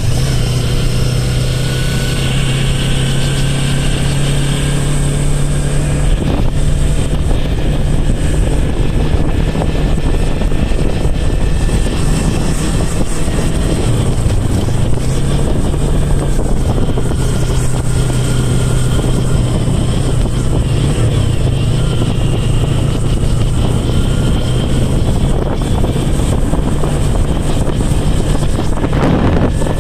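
Yamaha YZF-R25's parallel-twin engine running at a steady, moderate speed while riding, its note dipping briefly about halfway through, under a constant haze of wind and road noise from the gravel road.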